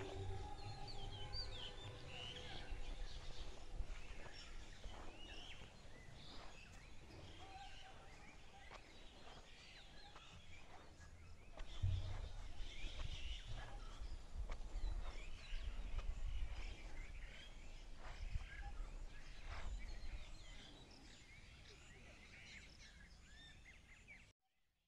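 Outdoor ambience of many small birds chirping and calling in short, quick notes over a low rumble that gets louder about halfway through. The sound cuts off abruptly just before the end.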